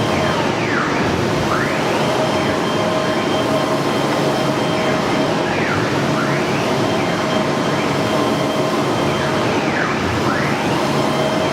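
CNC wood router with a 6 kW HSD spindle running: a steady whine, plus a pitch that sweeps down and back up about every four to five seconds as the machine's motors slow and speed up.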